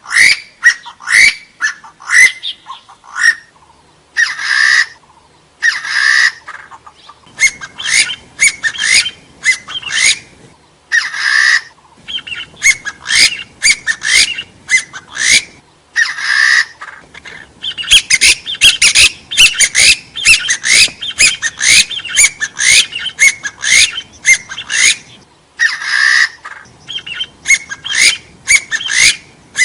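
Hill partridge (gà so) calling: a rapid series of short rising notes, two to several a second and densest toward the middle. Several times a longer, noisier call of about a second breaks in.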